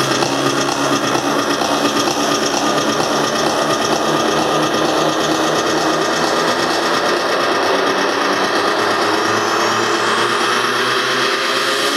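Psytrance played loud over a festival PA: a dense, fast buzzing synth texture. Over the last few seconds the bass drops away and a rising sweep climbs, building toward the drop.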